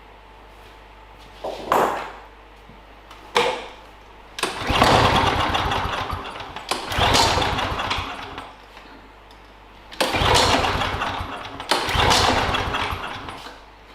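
Briggs & Stratton DOV lawnmower engine being pull-started, six times. The first two pulls are short, and each of the last four gives about two seconds of sound that falls away. The engine does not keep running, the hard-starting fault this mower has.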